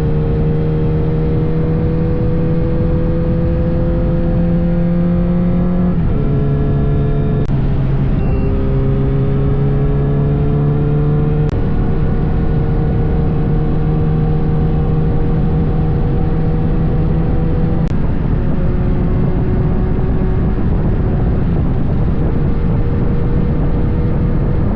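Kawasaki Z900RS inline-four engine pulling on the road, its pitch climbing slowly in each gear and dropping at each of several upshifts, with steady wind rush.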